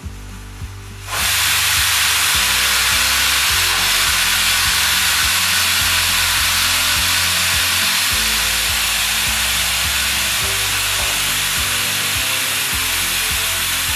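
Aluminium stovetop pressure cooker venting steam in a loud, steady hiss that starts suddenly about a second in, the sign that the cooker has come up to pressure.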